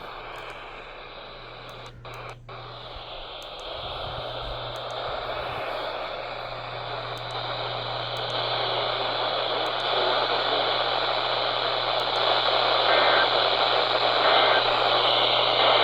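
Radio receiver static: a steady hiss of dead air with a low hum underneath, gradually growing louder, with two brief dropouts about two seconds in.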